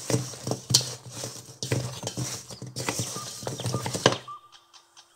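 Wooden spoon stirring glazed pryanik cookies in a stainless steel bowl: irregular knocks, clacks and scrapes as the spoon and cookies hit the metal, while the cookies are coated in whipped egg-white and powdered-sugar glaze. The stirring stops a little after four seconds.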